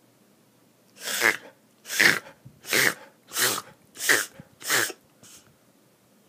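Basset hound mix coughing: six loud coughs in a quick run, about one every two-thirds of a second, then a faint seventh. A cough of unknown cause.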